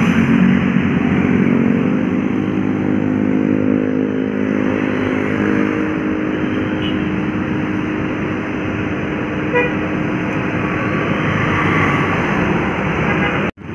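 A bus's engine running close by, a steady hum that fades over several seconds, over roadside traffic noise. A short horn toot comes about nine and a half seconds in.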